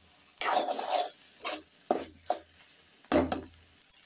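Metal spoon scraping and stirring shredded cabbage and potatoes around a metal kadai as they fry. First a long scrape about half a second in, then three short ones and another strong scrape about three seconds in.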